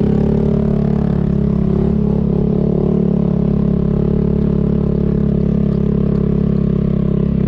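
Vespa scooter engine running at a steady, even pitch while riding up a hill track.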